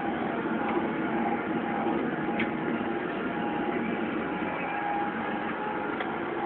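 Lamborghini R3 EVO 100 tractor's engine running steadily under load while it pulls a cultivator, heard from inside the cab, with a few faint clicks.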